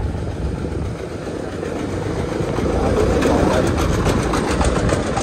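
Two-wheel power-tiller tractor's engine chugging with a fast, even knock, heard alongside a motorcycle's running engine while overtaking. The chugging grows louder and is loudest a little past halfway through, as the motorcycle draws level with the tractor.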